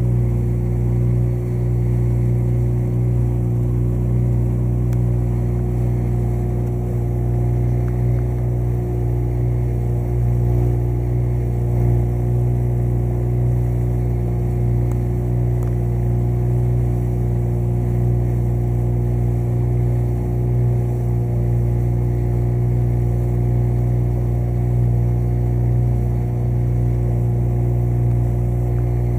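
Small motorboat's engine running steadily at an even cruising speed, a constant low drone.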